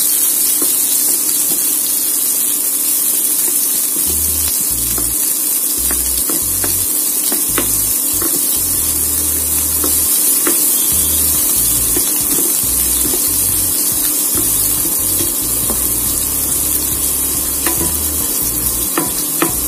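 Chopped onions sizzling in hot oil in a non-stick kadai, a steady high hiss, with a spatula scraping and tapping the pan in scattered clicks as they are stirred to sauté.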